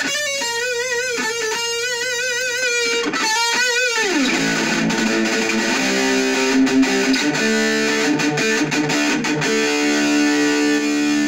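Distorted electric guitar, a Jackson KVXMG played through an Orange Micro Dark hybrid tube amp and its PPC108 1x8 cab, with an EQ boost pedal switched on. Single lead notes with wide vibrato for about four seconds end in a slide downward, then heavier held chords ring on. The boost is voiced for a 4x12, and the player finds it does not suit the little amp.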